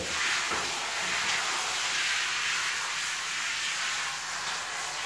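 Water from a handheld shower head spraying steadily onto a dog's wet coat, an even hiss.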